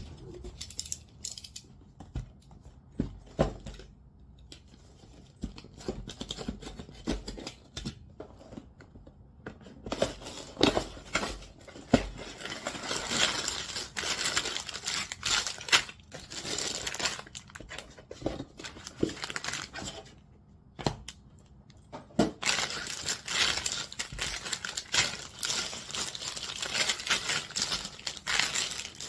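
A cardboard Lego box being opened, then plastic parts bags crinkling and rustling as they are handled. There are scattered clicks and knocks at first, then denser crinkling from about a third of the way in, with a short pause a little past the middle.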